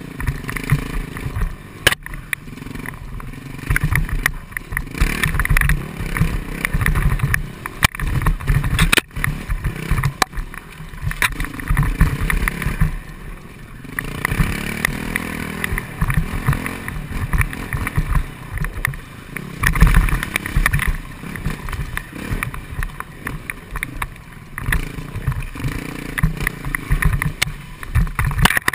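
Enduro dirt bike engine running on a rough trail, the throttle opening and closing in short, uneven surges, with the bike's bumps and rattles and a few sharp knocks.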